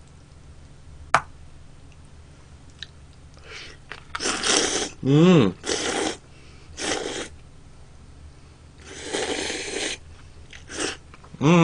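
A person slurping chopstick-held noodles in several short noisy bursts, with chewing between them and a brief hummed "mm" partway through. A single sharp click comes about a second in.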